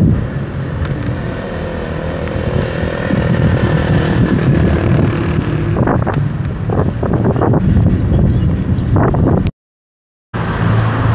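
Steady rumble of road vehicle traffic, with a few short clatters a little past the middle. The sound cuts out completely for under a second near the end.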